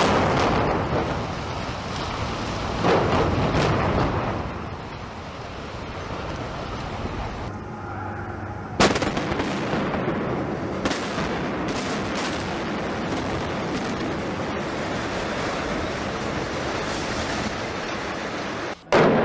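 Building implosions: a sharp blast of demolition charges, then a long rumble of the structure coming down. About nine seconds in, a second implosion starts suddenly with a quick run of charge cracks, followed by a steady rumble of falling debris.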